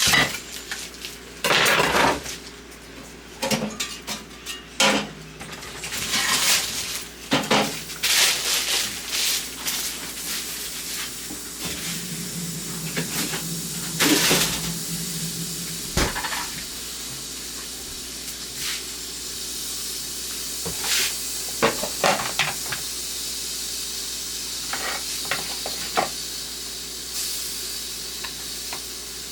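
Pots, pans and utensils clattering and knocking, with a steady hiss taking over about halfway through, broken by occasional clinks.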